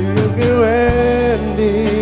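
Live band playing a song on electric guitars, bass, drums and keyboard. A melody line slides up into a long held note about half a second in, then moves on.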